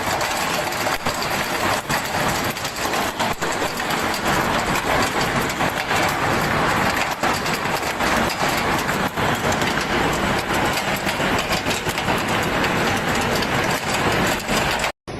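Heavy hailstorm: a dense, steady din of hailstones pelting hard surfaces, with many sharp hits throughout. It cuts off abruptly near the end.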